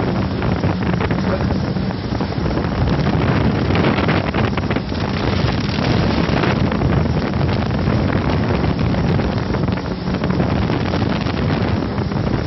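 Jet ski running steadily at speed, with heavy wind buffeting the microphone and water spray rushing past.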